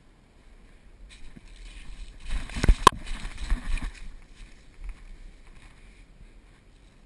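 Rustling, scuffing movement noise that swells for a few seconds, with two sharp clicks close together in the middle as its loudest point.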